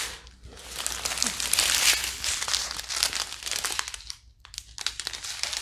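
Small clear plastic bags of diamond-painting drills being handled and turned over, crinkling steadily, with a brief lull a little past four seconds in.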